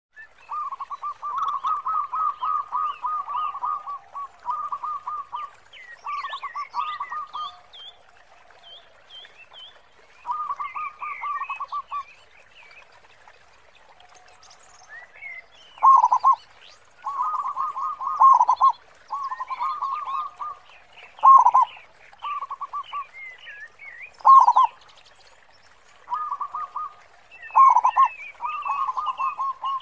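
Zebra dove (perkutut) cooing phrase after phrase: fast rolling coos, with several loud short notes in the second half, the big "khong" voice prized for a lure bird. Smaller birds chirp faintly behind it.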